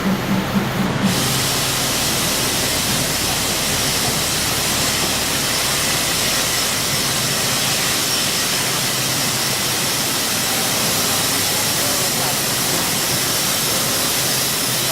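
Waterfall's falling water rushing as a loud, steady hiss, cutting in about a second in after a brief low hum.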